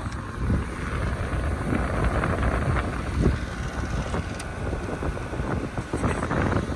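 2012 LG 6,000 BTU window air conditioner running just after startup, with wind noise on the microphone.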